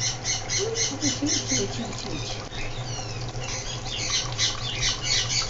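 Wet pet birds on a perch giving rapid high calls, about five a second, in two runs: one at the start and one in the second half, with a few falling calls between them.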